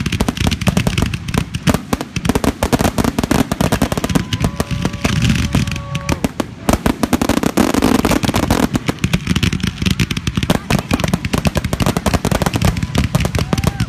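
Fireworks going off close by: a continuous rapid crackle of pops and bangs.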